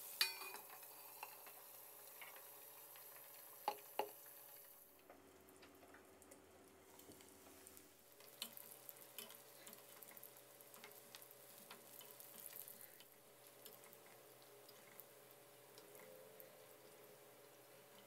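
Near silence, broken by faint clinks of a metal ladle against a wok, two sharper ones about four seconds in, and faint scattered crackling of pork belly deep-frying in oil.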